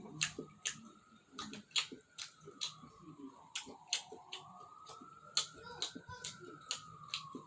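Eating sounds, mouth clicks and smacks from chewing seafood, coming irregularly about two or three times a second. Underneath, a faint tone slowly rises and falls.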